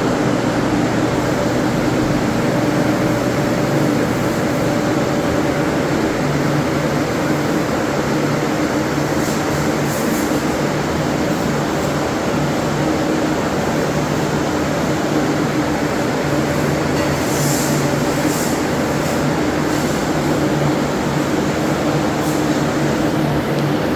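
Loud, steady machine noise with a constant low hum, running unchanged, then cutting off suddenly at the end.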